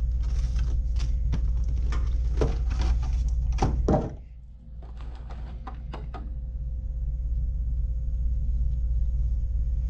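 Clear plastic packaging tray being handled, with a run of sharp clicks and knocks as a shotgun microphone is lifted out. It goes quieter about four seconds in, with a few more light clicks, and a steady low hum runs underneath.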